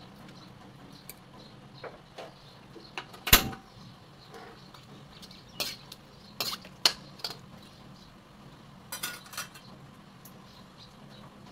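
Cooking utensils clinking and scraping against a steel wok while the curry is seasoned and stirred: a scatter of sharp clinks, the loudest about three seconds in, a cluster around six to seven seconds and another at about nine seconds.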